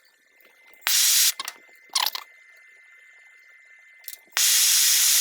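Three bursts of loud, steady hiss that start and stop abruptly: two short ones early on, then a longer one of about a second and a half near the end.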